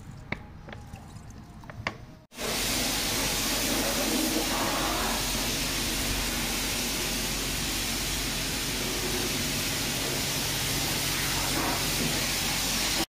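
A few light clicks over a low background, then from about two seconds in a steady, loud rush of water while a microfibre wash mitt is soaked in a bucket of soapy car-wash water.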